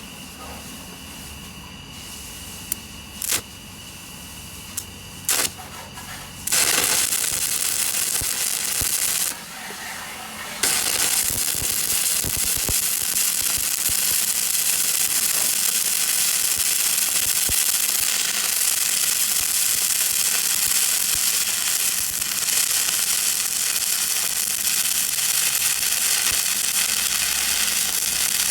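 Stick (arc) welding: a few sharp taps and clicks as the electrode is struck, then the arc catches about six seconds in and crackles and hisses steadily. It breaks off briefly around nine seconds, restarts, and burns on in one long run.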